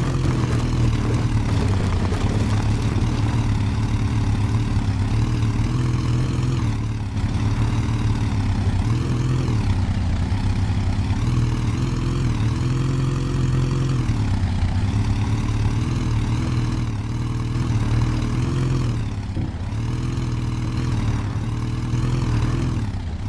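An off-road 4×4's engine running under load, its pitch rising and falling every second or two as the revs change.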